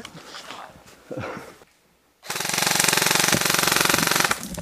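Airsoft electric rifle firing one sustained full-auto burst of about two seconds, a rapid even rattle that starts about two seconds in and stops shortly before the end.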